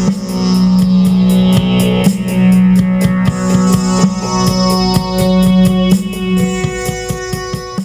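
Outro music: guitar and keyboard with a steady drum beat and a sustained low note.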